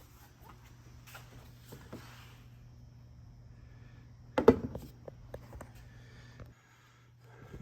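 A single sharp knock about halfway through, over scattered small clicks and a steady low hum that cuts off near the end.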